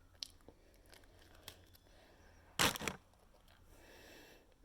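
A short crunch from an Oreo cookie about two and a half seconds in, with a few faint clicks around it.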